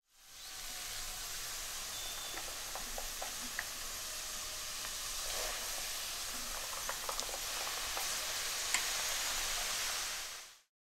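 Golgappa (pani puri) dough rounds deep-frying in hot oil in a wok: a steady sizzle with scattered small crackles and pops. It fades in at the start and fades out shortly before the end.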